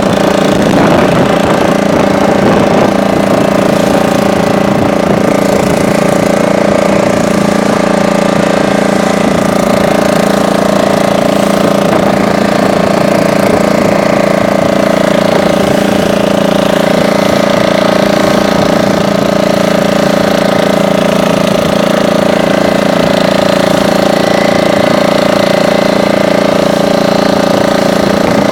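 Boat engine running loud and steady at an even speed, its pitch holding constant throughout.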